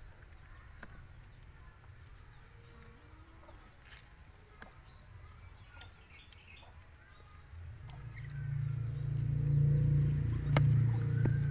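Faint outdoor background with scattered small clicks and short chirps. About eight seconds in, a low steady hum comes up and grows to the loudest sound.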